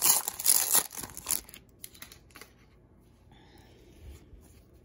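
Baseball card pack wrapper being torn open and crinkled in the hands, loud and crackling for about the first second and a half. Then come faint rustles and a few light clicks as the cards are slid out of the pack.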